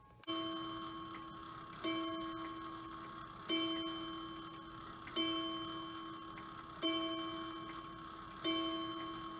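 New Haven banjo clock, case closed, striking nine o'clock: the first six strokes, each a single ringing tone that fades slowly, about one every 1.6 seconds.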